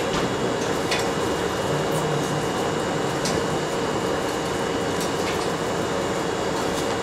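Steady machine hum from standing railway equipment, an even whirr with one constant tone, like a parked electric train's air-conditioning and auxiliary machinery running. A few faint clicks sound over it.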